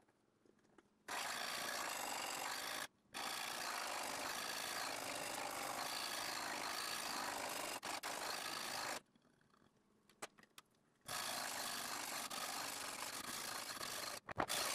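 A sharpening stone on the guide rod of a Ruixin Pro RX-008 guided knife sharpener rasps steadily along a clamped knife's edge. The scraping comes in three stretches, broken by a brief silence about three seconds in and a longer one from about nine to eleven seconds.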